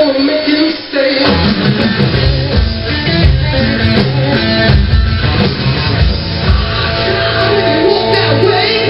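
Live hard-rock song with singing and a heavy electric guitar riff playing from a TV, with a DD-502 digital drum kit played along to it; heavy low drum thumps come in about a second in and keep going.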